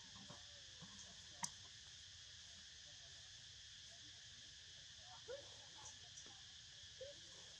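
Faint steady drone of insects, with one sharp click about a second and a half in and a couple of soft short sounds near the end.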